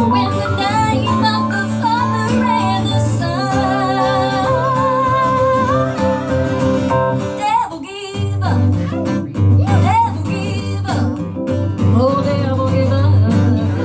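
A woman singing a slow gospel song, holding notes with vibrato, over a guitar played with a pick. The accompaniment's low notes drop out briefly a little past halfway.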